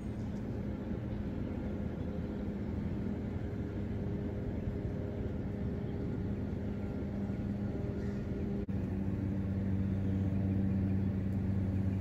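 A low, steady rumble with a hum running through it. It drops out for an instant about nine seconds in, and the deeper hum is louder after that.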